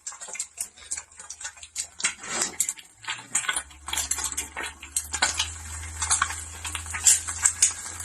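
Irregular clinking and clattering of dishes and cutlery, with a low steady hum that starts about three and a half seconds in.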